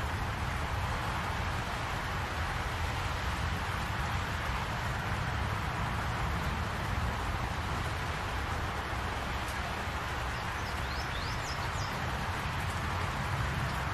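Steady rain falling, an even hiss with a low rumble beneath it. A bird chirps a few times, short and high, about eleven seconds in.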